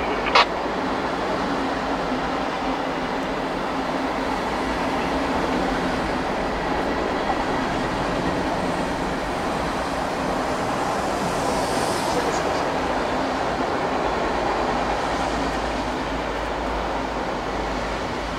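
Freight train cars rolling past, a steady loud noise of wheels on rail, with a sharp click about half a second in and a brief high hiss around the middle.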